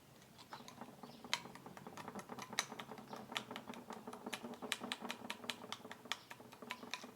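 A utensil clicking against a bowl while palm oil and sugar are stirred together: quick, irregular clicks, several a second.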